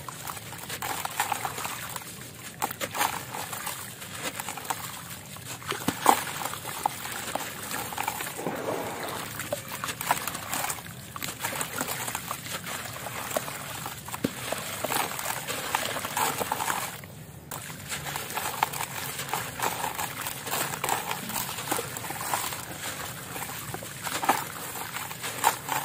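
Crumbly concrete chunk being squeezed and broken apart by hand in a basin of water: gritty crackling as pieces crumble off, with splashing and trickling as the crumbs and grit drop into the water. It pauses briefly about two-thirds of the way through.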